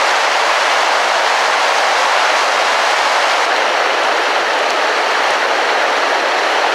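Water rushing and churning down a small waterfall: a loud, steady, even rush with no let-up.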